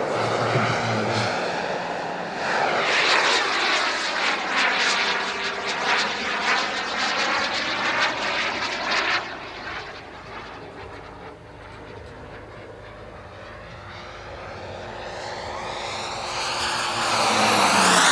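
Turbine engine of an Elite Aerosports Picaro model jet flying past, a jet rush that sweeps in pitch as it passes. It fades about halfway through as the jet climbs away, then swells loud again near the end as it comes back in low.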